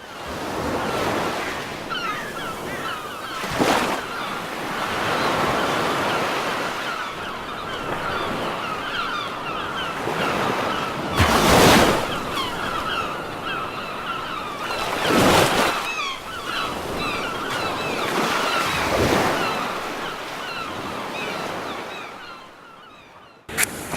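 A flock of seagulls calling, many short high calls overlapping, over a steady wash of sea and wind noise. Several louder rushes of noise rise and fall through it, and the sound fades near the end.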